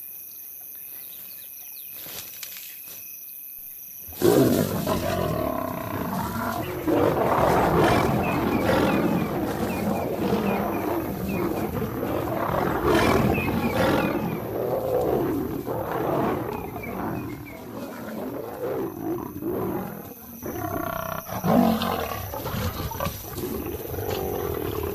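Lions fighting: a male lion attacks lionesses, which fight back, with loud roaring and growling that breaks out suddenly about four seconds in and goes on in waves.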